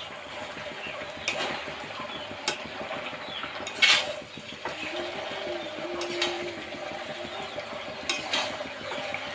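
A metal spatula stirring a thick, finished vegetable curry in a metal kadai, scraping and clacking against the pan over a low sizzle. There are a few sharp clacks, the loudest about four seconds in.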